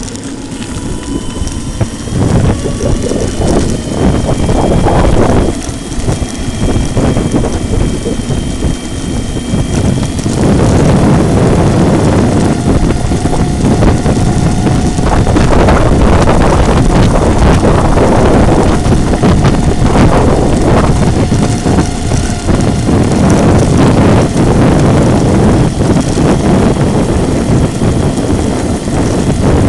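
Onboard an 800 W electric scooter: wind buffeting the microphone and the tyres rumbling over block paving, with a thin motor whine rising slightly in pitch. The wind and rolling noise get louder about a third of the way in as the scooter picks up speed.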